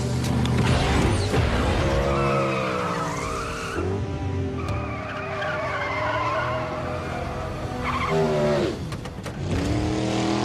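Car engines revving hard, rising and falling in pitch, with tyres spinning and squealing in a burnout, over film score music.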